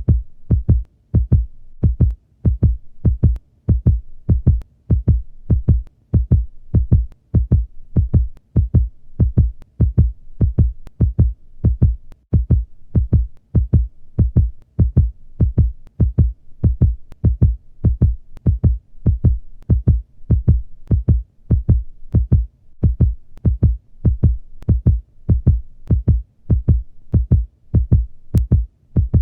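Heartbeat sound effect: a steady lub-dub of paired low thumps, a little over one beat a second.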